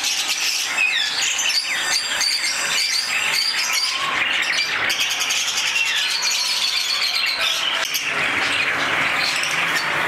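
Many caged birds, lovebirds among them, chirping at once: a dense, unbroken chatter of short, high chirps that rise and fall in pitch and overlap one another.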